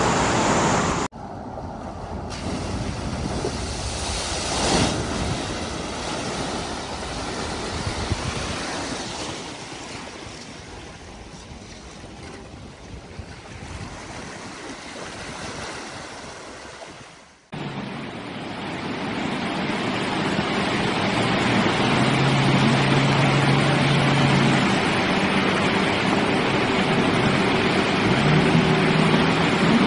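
Rushing, splashing water as vehicles push through deep water, breaking off abruptly about a second in and again just past halfway. In the last part a pickup truck's engine is heard running under the water and surf noise.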